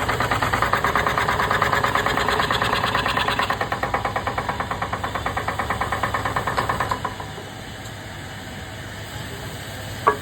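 A woodworking machine running with a rapid, even knocking rhythm of about five beats a second that stops about seven seconds in, leaving a quieter hum, then a single sharp click near the end.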